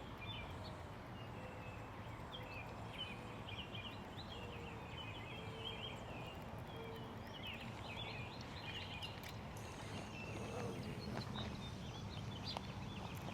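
Birds chirping and twittering, with many short calls, over a steady low outdoor background rumble; a few faint clicks come in the later part.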